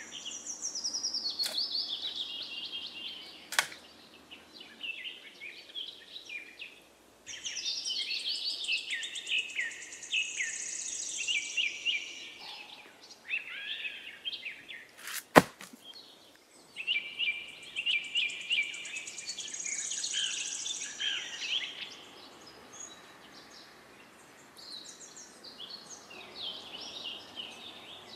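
Songbirds singing in phrases of quick, high chirping notes that come and go, with pauses in between. Two sharp knocks sound in the first few seconds, and one loud crack about fifteen seconds in.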